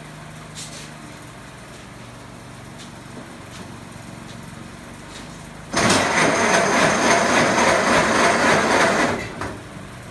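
1924 Model T Ford's four-cylinder flathead engine idling steadily, freshly retimed and with a muffler fitted. About six seconds in it is revved, much louder for about three seconds, then drops back to idle.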